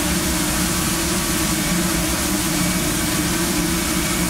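Steady hum of a commercial kitchen exhaust hood fan, with a constant hiss of burgers sizzling on the griddle.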